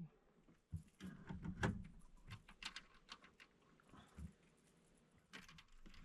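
Faint scattered knocks, clicks and rustling from handling gear in a boat, busiest about a second in and again near the end.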